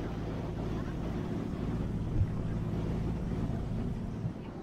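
Foot ferry's engine running steadily with a low hum, over the wash of its wake and wind on the microphone; a short thump about two seconds in.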